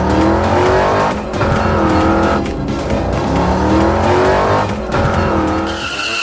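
Racing-car engine sound effect revving up several times, its pitch climbing and then dropping back, over background music.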